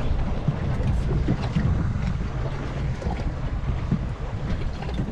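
Wind buffeting the microphone on an open boat at sea, a steady low rumble with the wash of the sea beneath it.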